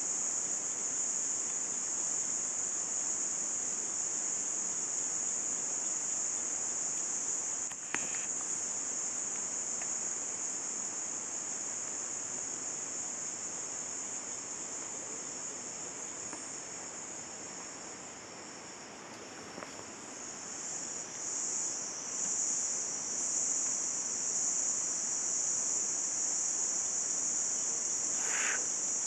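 Steady, high-pitched chorus of forest insects, a continuous shrill drone that eases a little midway and swells again, with a single click about eight seconds in.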